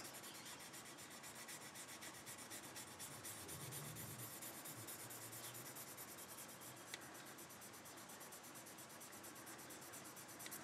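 Faint, steady rubbing of a fine-grit sanding stick worked back and forth over a clear plastic canopy part, smoothing out a moulding seam. One small click about seven seconds in.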